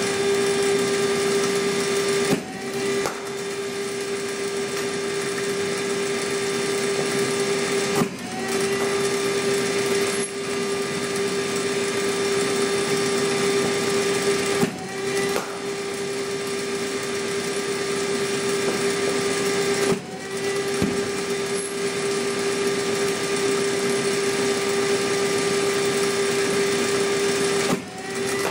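Cricket bowling machine running with a loud, steady motor hum. About every six seconds a ball is fed through: the hum dips briefly and climbs back, with a few short knocks around each delivery.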